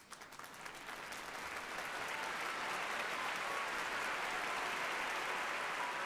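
Applause from many people clapping, building up over about the first two seconds and then holding steady.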